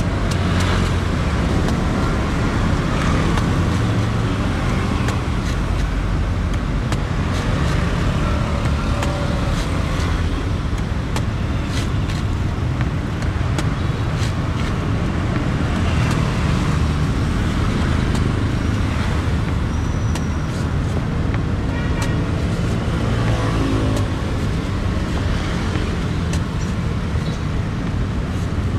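Steady road traffic noise, with irregular sharp knocks of a cleaver chopping and shaving the husk of a young green coconut on a wooden block.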